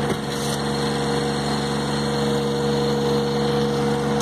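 Engine running steadily at a constant speed, driving the screw auger of a fertilizer spreader hopper, with a single light knock just at the start.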